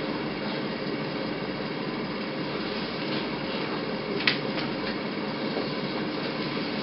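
Steady rumbling noise with faint hum, and one sharp click about four seconds in.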